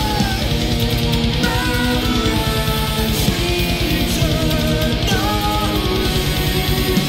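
Heavy metal music: guitars over a fast, steady double kick drum, about ten beats a second, with a high melody line that bends in pitch.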